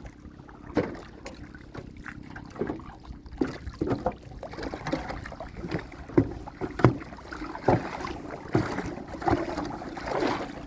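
Irregular knocks and splashes of water aboard a small boat while a line of river-prawn traps is hauled up.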